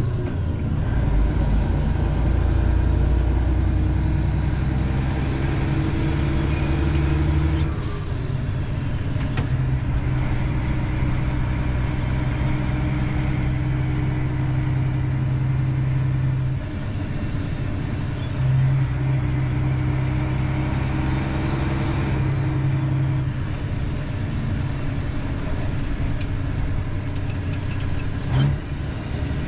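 Freightliner Classic semi truck's diesel engine running under load as the truck is driven, heard from inside the cab. The engine note changes with gear shifts about eight seconds in and again around sixteen to nineteen seconds in, and a faint high whistle rises and falls above it.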